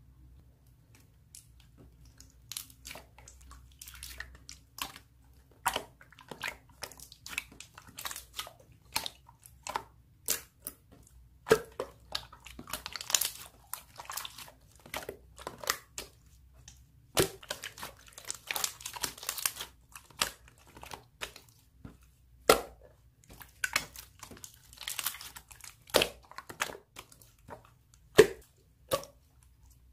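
Slime being handled and squished: irregular crackling, clicking and popping, with several louder pops.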